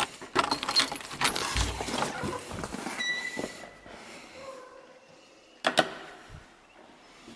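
A key clicking into a door lock and turning, with keys jangling on their ring, then the door unlatching and swinging open with a short squeak. Near the end comes one sharp click of a wall light switch being flipped.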